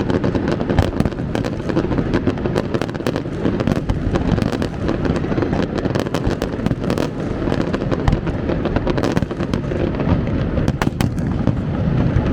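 Fireworks display going off continuously: a dense run of sharp bangs and crackles over a deep rolling rumble.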